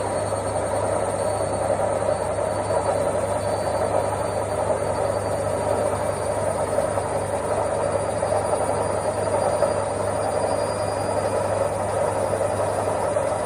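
Washing machine running steadily: a constant low motor hum with whirring noise over it and a faint high whine.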